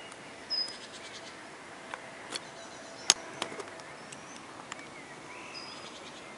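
Quiet outdoor ambience with short high bird calls, one about half a second in and another near the end, and a few sharp clicks, the loudest about three seconds in. The aircraft in view is not clearly heard.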